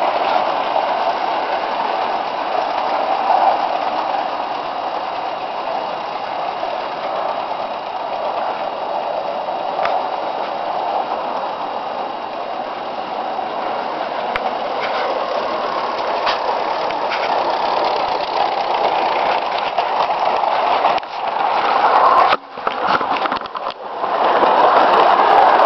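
A small live-steam garden-railway train running steadily: the Mamod oscillating-cylinder locomotive's rapid exhaust and the train's wheels rattling along the track, heard from a wagon in the loaded train. The sound drops out briefly a few times near the end.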